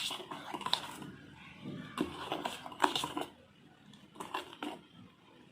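Stirring a rice-flour, sugar and milk mixture in a vessel: irregular scraping and rustling with a few sharp knocks against the vessel.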